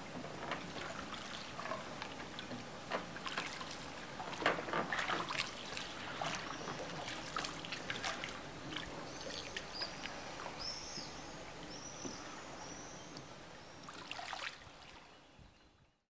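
Water splashing and trickling as a wooden oar dips and pulls through canal water beside a rowed boat, with a short run of high chirps in the middle. The sound fades out at the end.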